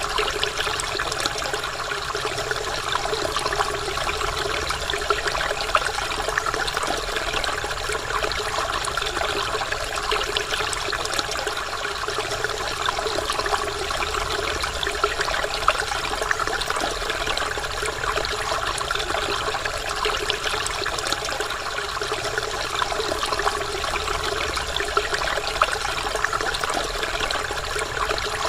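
Waterfall: a steady rush of falling water with fine splashing throughout.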